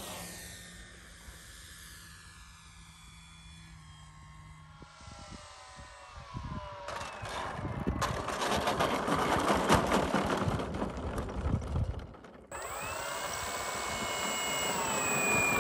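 Electric motor and propeller of a radio-controlled WACO biplane whining, the pitch sliding down as the plane pulls away, then rising in loudness with a rushing noise as it comes in close to land. After a sudden cut, the motor whines steadily close by, its pitch dropping near the end as it is throttled back.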